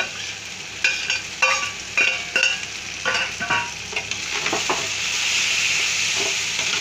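Steel slotted spatula clinking and scraping on steel as chopped green capsicum is pushed into a kadhai of frying tomato-onion masala, several sharp ringing clinks in the first few seconds. From about four seconds in, a steady sizzle builds as the peppers fry in the hot oil and are stirred.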